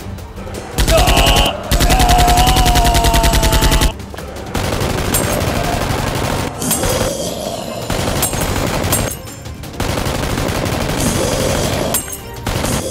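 Rapid automatic gunfire in two long, fast bursts over the first four seconds, followed by a less regular stretch of noisy firing.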